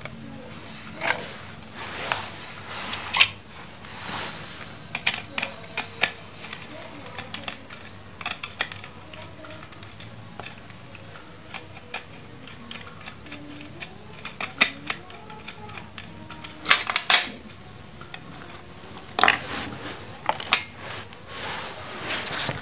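Irregular metallic clicks, clinks and scrapes of a screwdriver turning the screws of a switching power supply's screw-terminal strip, with the metal-cased unit being handled and knocked.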